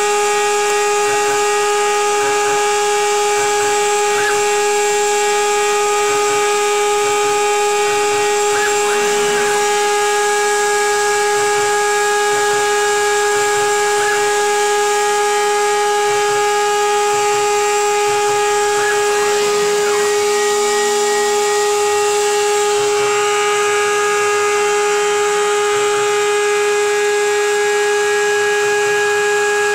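CNC router spindle running at a steady high-pitched whine while milling polystyrene sheet, over a constant hiss of dust-extraction suction.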